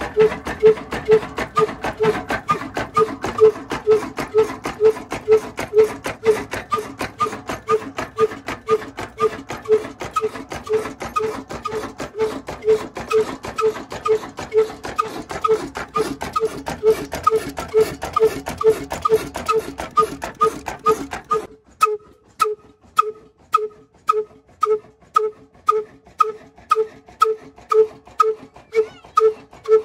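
Old Ruston single-cylinder horizontal oil engine running steadily, its exhaust beating about twice a second. About 21 seconds in the surrounding engine noise drops away at once, leaving only the hollow exhaust puffs from the tall exhaust pipe.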